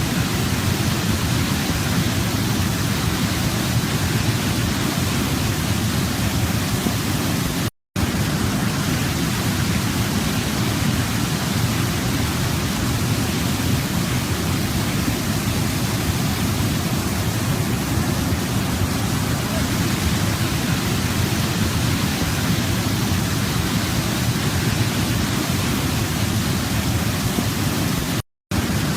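Waterfall: a steady rush of falling water, heaviest in the low rumble with a hiss on top. It cuts out to silence for an instant twice, about eight seconds in and near the end.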